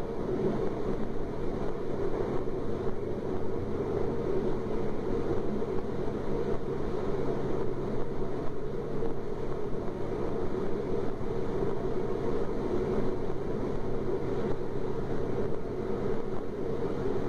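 DB Class 425 electric multiple unit running at a steady speed: an even rumble of wheels on rail with a steady drive hum, no rise or fall in pitch.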